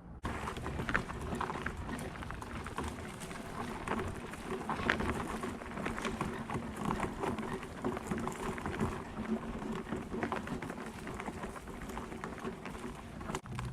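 Wheelchair wheels rolling over cut palm fronds and yard debris: a dense, continuous crackle and crunch, with a faint steady hum underneath.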